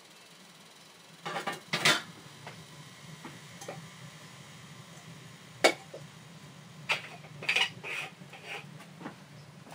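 Metal kitchenware clattering: a pot set down on top of a sheet-metal wood stove, with a burst of knocks about a second in, a sharp clink in the middle and a run of smaller clinks and knocks near the end. A faint low hum runs underneath.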